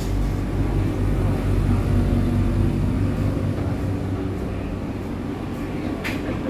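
Steady low hum of a standing diesel passenger train, heard from inside its coach. The deepest rumble eases a little a bit over halfway through.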